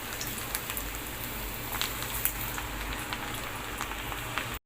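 Vegetable pakoda dough, made of rice flour and gram flour, sizzling and crackling as it deep-fries in hot oil. A steady hiss with scattered small pops, breaking off abruptly near the end.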